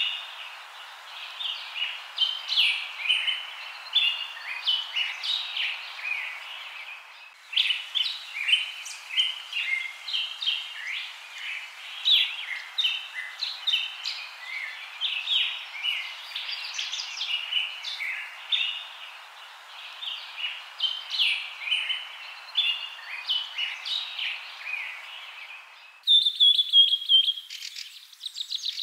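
Many small birds chirping and singing in overlapping short calls over a steady hiss. About 26 s in, the hiss cuts off abruptly and a faster trilling chirp takes over.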